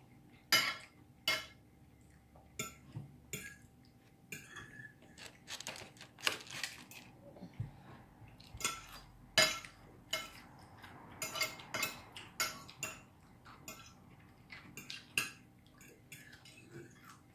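Cutlery clinking and scraping against dinner plates as people eat: irregular sharp, ringing clinks, a few every second, some louder than the rest.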